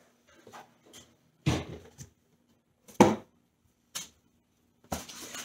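Cardboard boxes being handled and set down: a few short knocks and scuffs, with the loudest thud about three seconds in.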